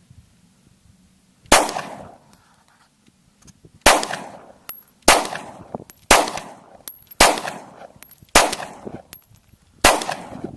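Seven pistol shots from a Glock 26 9mm subcompact, fired one at a time about a second or so apart, each sharp crack followed by a short echo.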